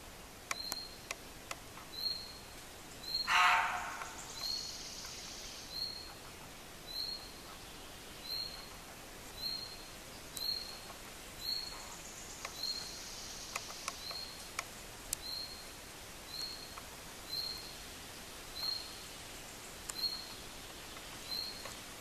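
A small bird repeats a short high chirp about once a second throughout. About three seconds in, a roe buck gives one loud, harsh bark.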